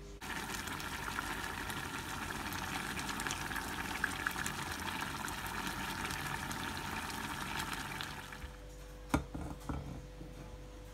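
Thick tomato sauce bubbling and spitting as it simmers in a pot, a steady crackling hiss. It stops about eight and a half seconds in, followed by a sharp knock and a few soft thumps.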